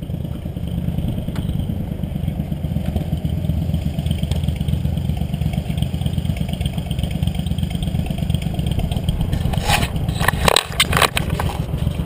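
Motorcycle engine idling with a steady low rumble close to the microphone. Near the end, a cluster of sharp knocks and clatter as the mounted camera is handled.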